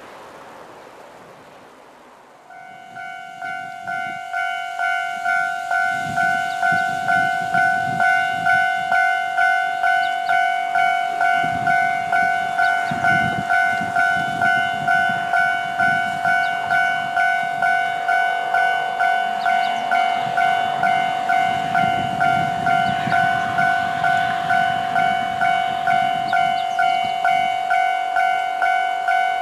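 Japanese level-crossing warning bell ringing in a steady, even rhythm of about one ring and a bit per second. It starts suddenly about two and a half seconds in. A low rumble rises and falls beneath it at times.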